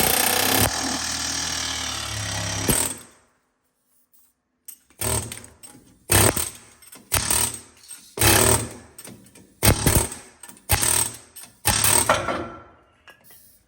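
Pneumatic air hammer chiselling at a seized suspension plate. It runs once for about three seconds, goes quiet, then fires in about eight short bursts of under a second each.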